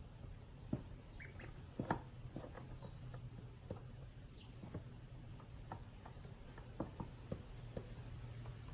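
Ducklings shifting and nestling in wood-shaving bedding: faint scattered rustles and small taps, two a little louder in the first two seconds, over a low steady hum.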